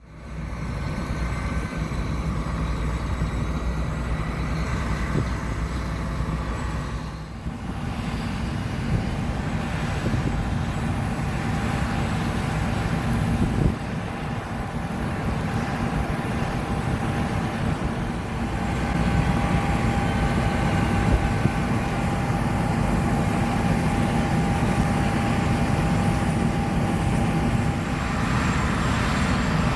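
John Deere S780 combine harvesters running steadily, a low mechanical drone with a faint steady whine over it, with brief breaks about seven seconds in.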